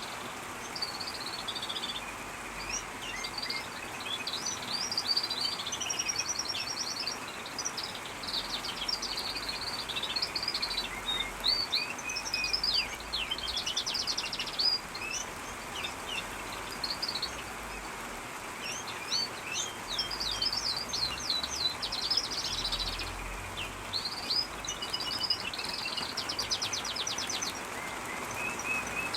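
Aviary songbird singing long, continuous warbling phrases broken by very fast trills, with short pauses, over a steady hiss of falling rain.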